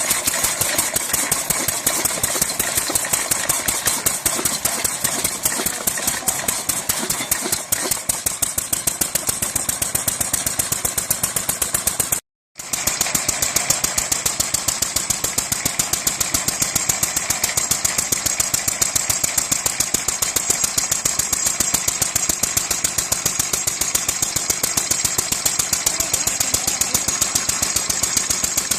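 Engine of a heavy vintage chainsaw running steadily, its firing strokes coming through as a rapid, even beat. The sound drops out briefly at a cut about twelve seconds in, then the same steady running resumes.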